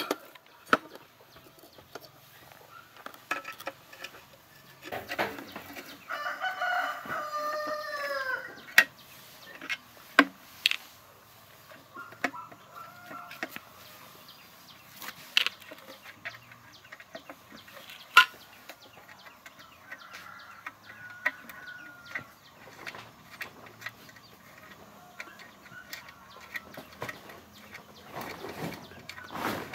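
A rooster crows once, about six seconds in, a call of roughly two and a half seconds, with fainter chicken clucks later. Sharp metallic clinks and knocks of hand tools working on a small petrol-engine water pump come and go throughout and are the loudest sounds.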